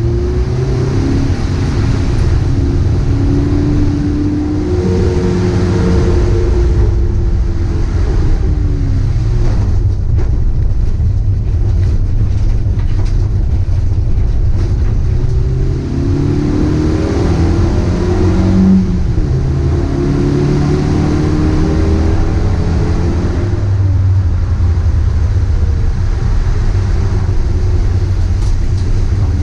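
Dacia Logan Cup race car's engine heard from inside the cockpit under racing load, its note rising and falling as the car accelerates and slows for corners, over a constant low rumble. A steady hiss of tyres and spray on the wet track runs underneath.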